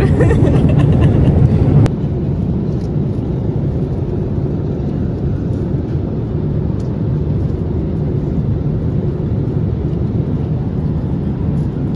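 Steady low rumble of a vehicle in motion. About two seconds in it cuts abruptly to a slightly quieter stretch of the same even rumble.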